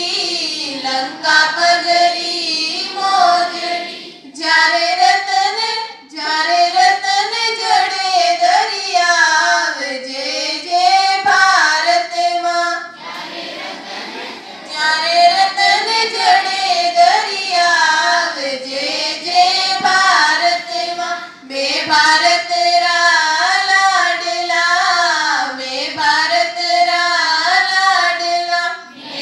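Group of schoolchildren singing a prayer together in unison, phrase by phrase with short breaks between the lines and a quieter stretch about halfway through.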